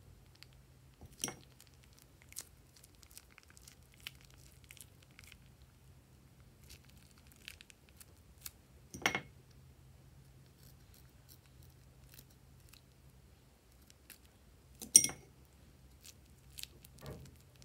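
Plastic piping bag crinkling in the hands as clear glue is squeezed out of it, scattered small crackles with three louder crinkles spread through it.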